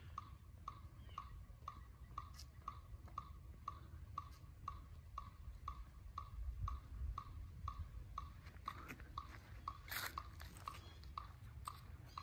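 Electronic metronome beeping steadily at about two beats a second, with faint scuffing footsteps; the mellophone is not being played.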